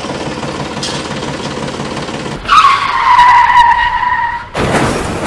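Running sound of a miniature DIY tractor pulling a loaded trolley. It starts as a steady rattling rumble. About two and a half seconds in, a loud high whine sets in and falls slightly over two seconds, and a burst of hiss comes near the end.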